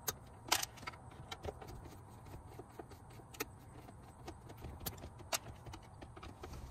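Screwdriver backing out the bolts that hold a dashboard display screen: a run of small, irregular metallic clicks and taps, the sharpest about half a second in and again just after five seconds.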